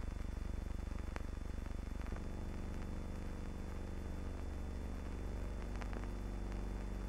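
Steady low electrical hum with hiss and a few faint clicks: the noise of an old film soundtrack. Its pitch pattern shifts slightly about two seconds in and again about halfway through.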